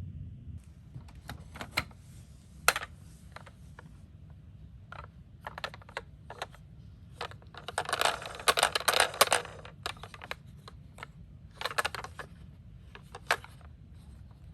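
Small toy minicars clicking and clattering against each other as they are handled, in scattered knocks with a denser rattle a little past the middle and another shortly after.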